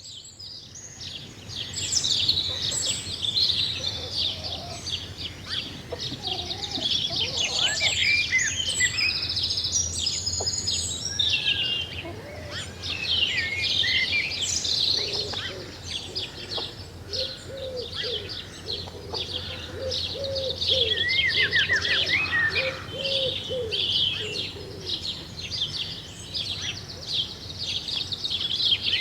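Dawn chorus of many songbirds chirping and trilling together, with a run of lower, repeated calls from another bird through the middle, over a steady low hum.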